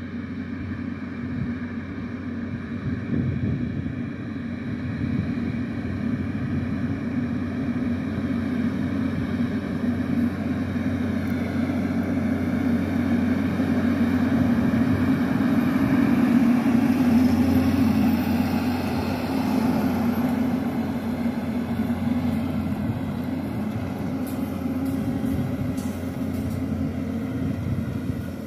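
Farm tractor pulling a boom sprayer, its engine running steadily. It grows louder as the tractor comes closer, is loudest a little past halfway, then fades as it moves away.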